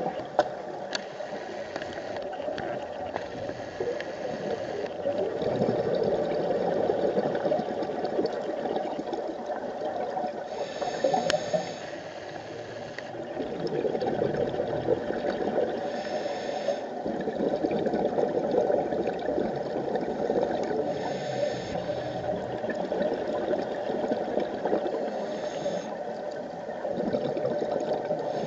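Scuba breathing through a regulator, heard through an underwater camera housing: long bubbling exhalations in surges, broken about every five seconds by a short hiss of inhalation.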